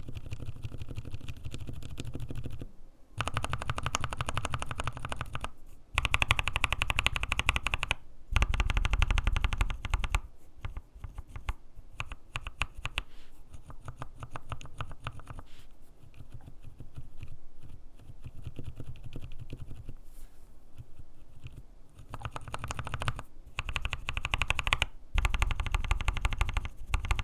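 Fast typing on tactile mechanical keyboard switches: a series of runs of dense key clicks a few seconds long, split by short pauses, some runs louder than others as different switches are tried in turn.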